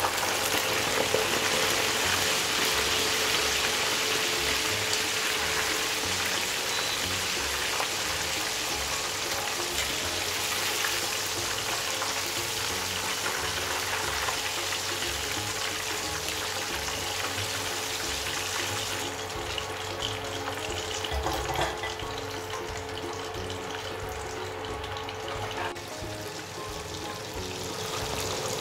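Battered chicken pieces sizzling in hot oil in a wok, dropped back in for a second fry to make them crisp. The sizzle starts suddenly, is loudest just after the chicken goes in and settles down gradually.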